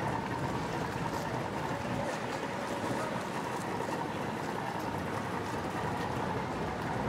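Boat motor running steadily under an even rushing noise, with a faint steady whine.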